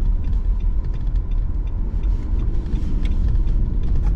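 Low, steady rumble of a car driving on a snowy road, heard from inside the cabin: tyre and road noise with the engine running under it.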